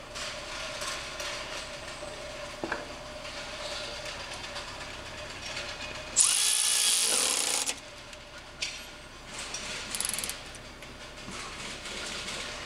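Ratchet working a plug on a Jeep JK's Dana 44 differential, with scattered clicks. Partway through there is a loud hiss with a whine that rises and falls, about a second and a half long.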